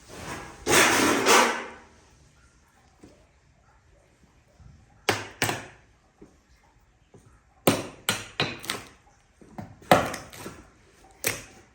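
A short rushing scrape in the first two seconds, then a scatter of about ten sharp wooden knocks and taps, some in quick pairs.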